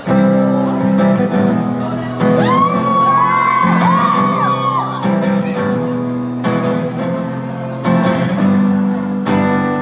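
Amplified acoustic guitar strumming the slow chord intro of a ballad. Audience members whoop and scream over it from about two to five seconds in.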